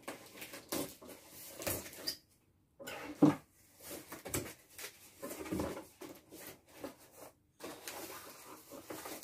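Cardboard box being opened by hand: irregular rustling and scraping of the flaps, with a sharp knock about three seconds in.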